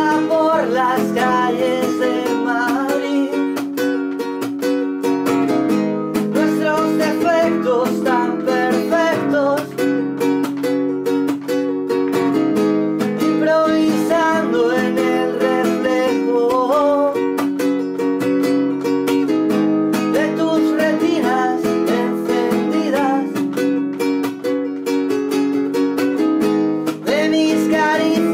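Nylon-string classical guitar strummed steadily, with a man singing over it.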